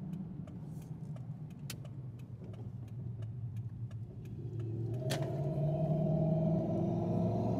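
A Toyota 4Runner's 4.7-litre V8 heard from inside the cabin. It runs with a low, even rumble and faint rapid ticking, then about five seconds in there is a sharp click, and the engine note climbs and grows louder as the truck accelerates.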